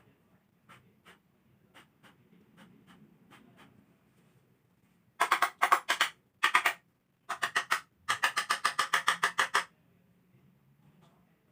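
Printer mechanism clicking: a few faint ticks, then from about five seconds in several loud runs of rapid clicks, about nine a second, which stop just before ten seconds in.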